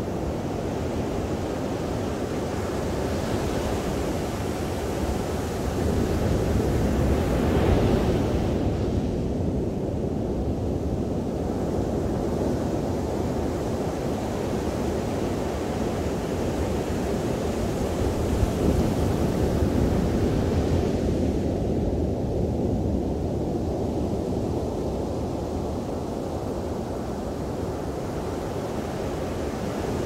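Ocean surf breaking and washing up a sandy beach, a continuous roar of water that swells twice as bigger waves come in, about a quarter of the way in and again past the middle.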